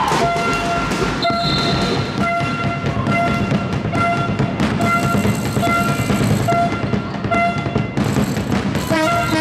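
A horn blowing one note in short toots, about twice a second, over a steady crowd hubbub. The toots come faster and fuller near the end.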